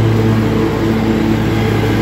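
Stand-on zero-turn lawn mower's engine running steadily at mowing speed, a loud even drone with a low hum, its blades cutting tall spring grass.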